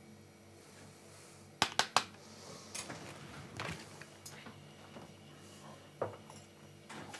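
Three sharp clicks in quick succession about a second and a half in, then a few fainter knocks and clinks of small hard objects being handled, over a low steady hum.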